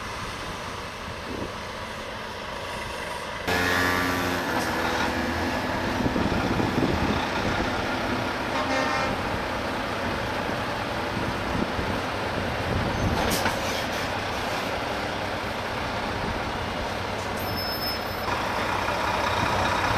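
Big American semi trucks driving past, their diesel engines running steadily. About three and a half seconds in, an air horn blasts for a second or two.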